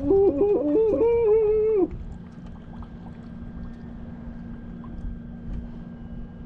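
A loud, pitched, voice-like call lasting about two seconds: it climbs in a few steps and is then held with a wavering tone before stopping. Under it and after it runs a steady low hum.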